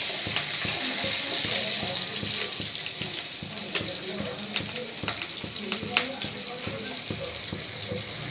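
Small onions, green and dried red chillies and curry leaves frying in hot oil: a steady sizzling hiss with a few sharp pops, slowly getting quieter as the onions sauté.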